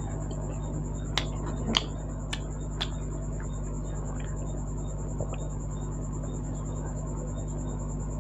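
A person eating with the mouth close to the microphone: a few sharp lip smacks and mouth clicks in the first three seconds, then quieter chewing, over a steady electrical hum.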